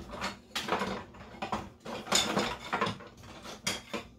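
Rummaging through a kitchen utensil drawer: utensils clatter and rattle against each other in an irregular run of knocks as a spatula is picked out.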